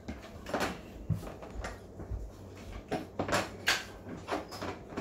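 Scattered, irregular light clicks and taps of a puppy moving about on a hard floor with a chew, a little louder around the middle.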